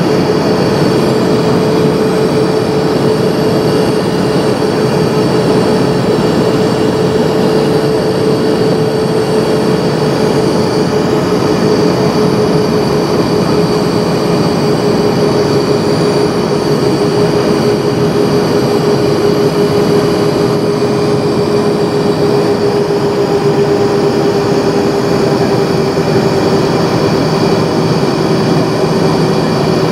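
Steady roar of an Airbus A320's jet engines and rushing air, heard inside the passenger cabin. A steady hum runs through it and drifts slightly lower in pitch over the half minute.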